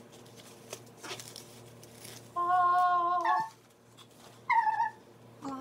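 Light rustling as the fabric cover slides off the iMac. Then a drawn-out call held on one steady pitch for about a second, and a shorter, higher call that falls in pitch, with a brief third one at the end.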